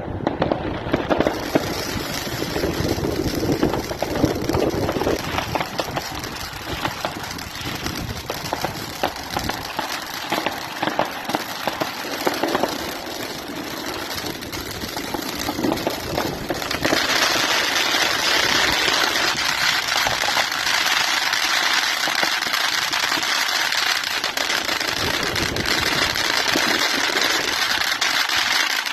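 Consumer cube (cake) fireworks going off: a rapid, continuous string of bangs and pops, turning about 17 seconds in into a steady, dense crackle.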